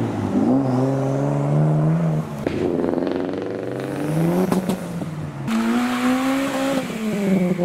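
Modified Japanese performance cars (a Nissan Skyline R33, then a Mitsubishi Lancer Evolution and a Honda Civic) accelerate away one after another. Each engine note rises through the revs three times, then drops off sharply at a gear change or lift-off, with a short sharp crack about four and a half seconds in.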